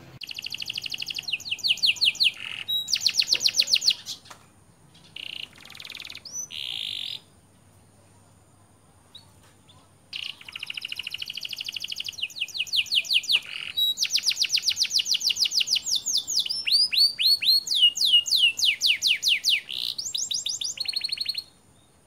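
Canary singing: long rolling trills, each a fast run of repeated high notes, broken by short pauses and a quiet gap of about three seconds in the middle, with a series of falling sweeps near the end.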